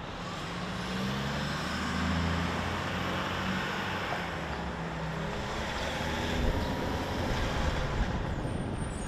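Heavy road vehicle's engine running with road noise, its pitch shifting up and down in steps as it drives.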